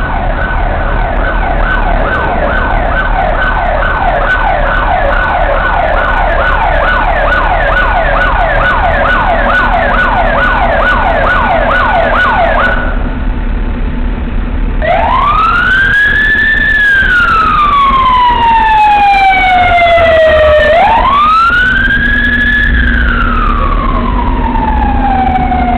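Police van's electronic siren sounding a fast yelp, breaking off about halfway, then switching to a slow wail that rises and falls twice and starts a third rise at the end, over a steady rumble of rush-hour traffic.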